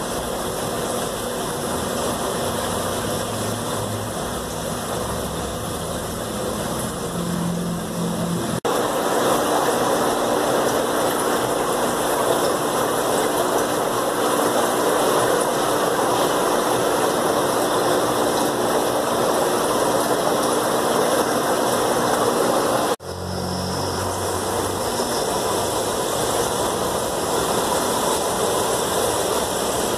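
Steady hum and hiss of running aquarium equipment, air pumps and bubbling water, with no speech. The sound changes abruptly twice, about nine seconds in and about twenty-three seconds in, and is louder in between.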